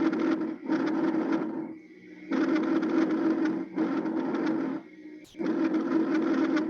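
Recorded normal breath sounds heard through a stethoscope, with the noise of air moving in and out of the lungs. The breaths come in a steady rhythm: each inhalation runs straight into its exhalation, and a short pause separates one breath from the next.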